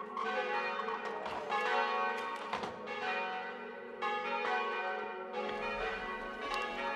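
Church bells ringing in a peal, several bells striking one after another at irregular intervals, their tones ringing over each other.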